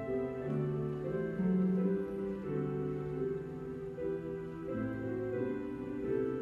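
Slow, soft instrumental keyboard music: held chords moving from one to the next every second or so.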